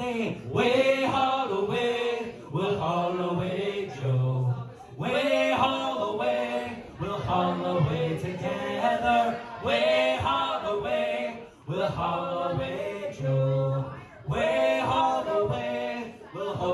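Live pub band: several men singing together in chorus, in sung phrases of a couple of seconds with short breaks between them.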